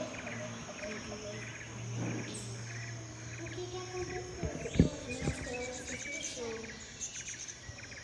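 Forest ambience of crickets chirping about twice a second, with bird calls over a steady low hum. A couple of low thumps come about halfway through.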